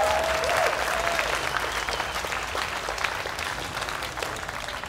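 Large audience applauding, with a few voices calling out in the first second. The clapping slowly dies away toward the end.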